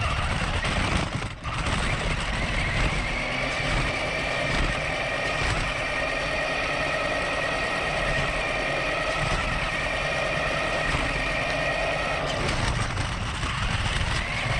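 Electric motor of an RC truck running on a 3S LiPo battery, whining at full throttle over rumble from the road. The pitch rises in the first few seconds, then holds steady, then wavers and climbs again near the end.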